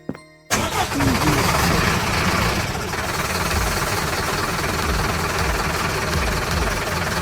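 A motor vehicle engine cuts in abruptly about half a second in, replacing a jingle, and keeps running steadily and noisily.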